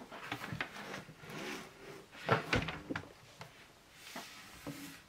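Hands handling objects on a tabletop: a run of irregular clicks, knocks and rubbing, loudest about two and a half seconds in.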